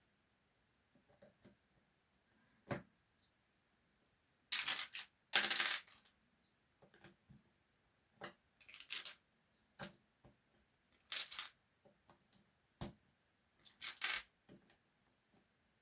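Small hard objects clicking and clattering: scattered single taps, with short rattling clatters about five seconds in, near eleven seconds and near fourteen seconds.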